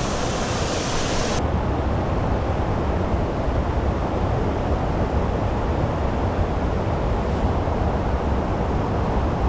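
Wind buffeting the microphone: a steady rushing noise, heaviest in the low rumble. The higher hiss drops away abruptly about a second and a half in.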